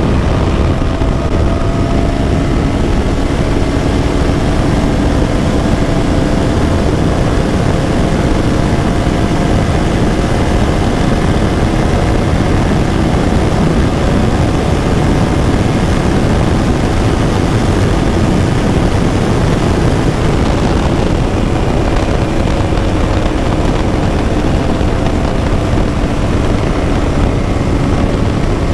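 KTM Duke 200's single-cylinder engine running at a steady cruise while riding, its note holding nearly level with only slow drifts in pitch. Heavy rushing wind noise lies under it.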